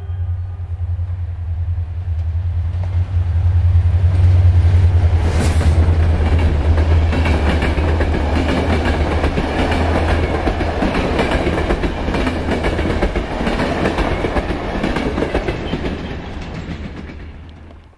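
Passenger train passing close by: a loud low drone from the locomotive, then the rumble of the coaches with wheels clattering over rail joints, fading away near the end.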